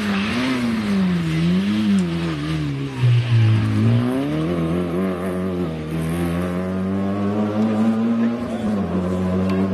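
Peugeot 106 XSi rally car's engine driven hard through a corner, the revs rising and falling several times in quick succession. About three seconds in the revs drop low, then they climb again and hold steady before falling near the end.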